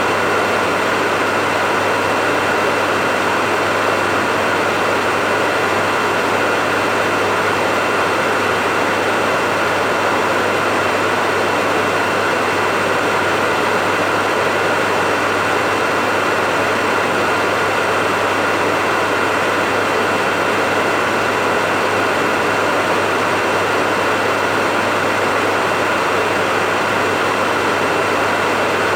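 Hair dryer running continuously at a constant speed: a steady rushing hiss of blown air with a low motor hum and a faint high whine, unchanging throughout, used as white noise to lull a baby to sleep.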